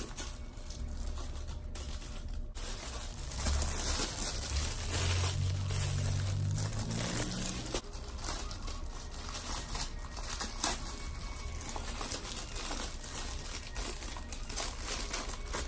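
Packaging crinkling and rustling as it is handled, with many small crackles. A low hum sits under it for a few seconds in the middle.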